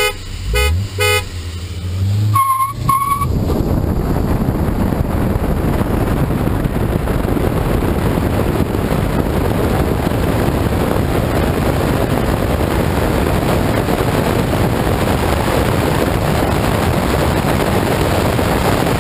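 A car horn honks twice, then two higher beeps follow about two seconds in, over an engine revving up. From about three seconds on there is a loud, steady rush of wind and road noise from a car accelerating hard and running at speed.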